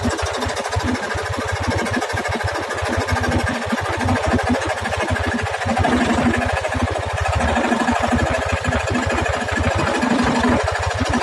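Electric jigsaw cutting wood, its reciprocating blade running in a fast, steady rhythm.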